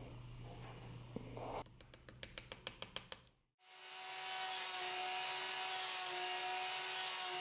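A quick run of about a dozen clicks, then, after a short break, a flexible-shaft rotary tool running steadily with a high whine as its bit works the elk-horn knife handle.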